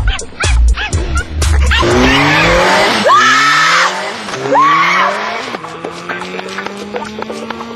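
A dog barks over a low beat. About two seconds in, a Suzuki sport motorcycle engine accelerates hard through the gears, its pitch climbing and dropping back at each shift, then climbing steadily. A woman screams twice over the engine.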